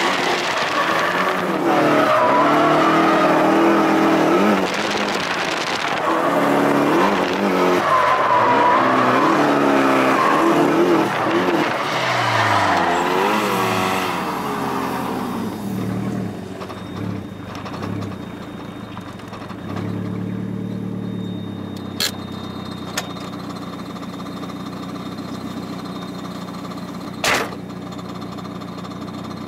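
Nissan 180SX engine revving hard with tyre noise during burnouts, heard from inside the cabin. About 14 s in, the revs fall away and the engine settles to a steady idle. Two sharp knocks come later, one around the 22-second mark and a louder one near the end.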